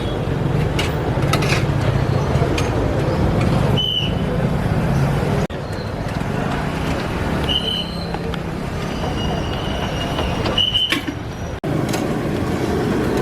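Steady street traffic noise, with a few short high-pitched tones and two brief sudden dropouts.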